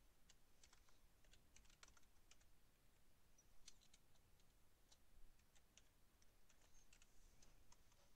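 Faint, irregular clicking of keys on a computer keyboard as text is typed.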